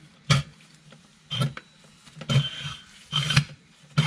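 Hand-operated fluid suction gun working differential gear oil, a short rasping stroke about once a second.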